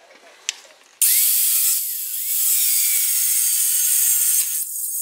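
A 4.5-inch angle grinder with a thin Osborn cutoff wheel cutting through a rusted, seized steel exhaust manifold bolt and nut. The harsh, high-pitched grinding of wheel on steel starts abruptly about a second in, eases off briefly near the end and picks up again.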